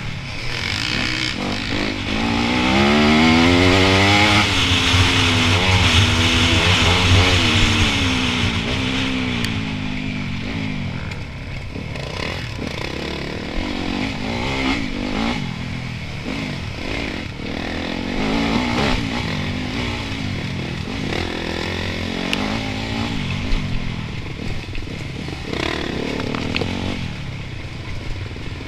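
Enduro dirt bike's engine heard from on the bike, revving up and down in pitch as the rider accelerates and shifts along a dirt track. It is loudest for the first several seconds, then runs at lower revs with scattered knocks and rattles over rough ground.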